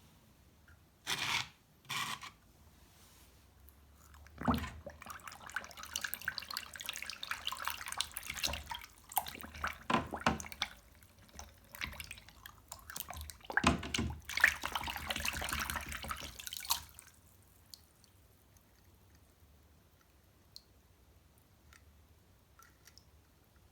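Water running and splashing as die-cast toy cars are washed, with small clicks and clatter of the toys. It stops about 17 seconds in, leaving only faint ticks.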